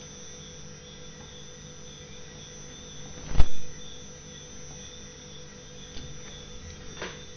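Steady electrical hum with a faint whine behind it. One sharp thump comes about three and a half seconds in, and a couple of faint clicks near the end.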